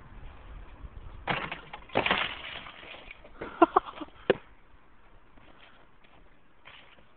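Shovel knocking icicles off a house's eaves: crunching strikes of breaking ice about one and two seconds in, then a quick run of sharp cracks and clinks of ice around three and a half to four seconds in.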